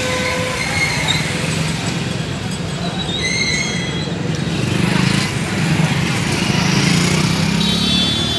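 Street traffic heard from a moving vehicle: engines running steadily with a low rumble and road noise, and a few short high chirps about three seconds in.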